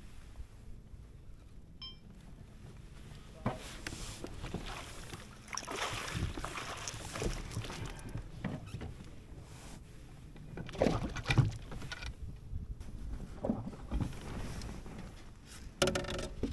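Water splashing and sloshing against a fishing kayak, in irregular surges, with scattered knocks over a steady low rumble of river and wind.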